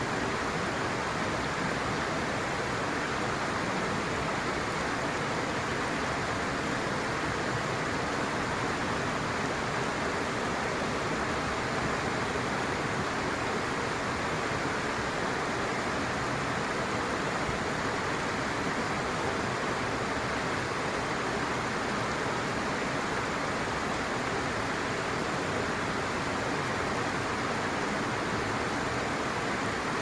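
Steady rushing of a shallow stream flowing over rocks, even and unchanging.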